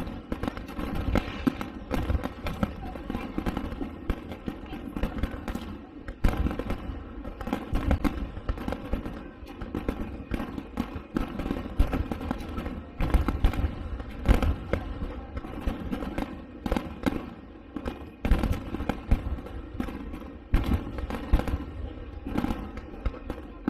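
Fireworks display: aerial shells bursting in a dense, irregular barrage of booms and crackles.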